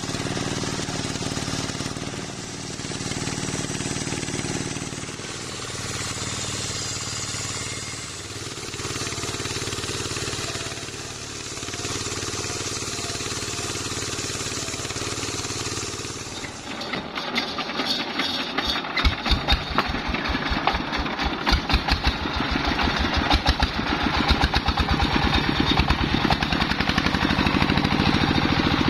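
Diesel-driven circular sawmill bench cutting waru logs, the saw and engine running steadily with the sound swelling and easing every few seconds as each cut goes through. About 17 seconds in the sound changes to the single-cylinder diesel engine's regular firing beats, quickening and growing louder.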